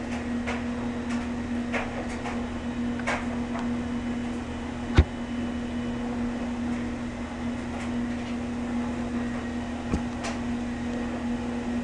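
Steady indoor machine hum with a constant low tone, with faint scattered clicks and a sharper knock about five seconds in and another near ten seconds.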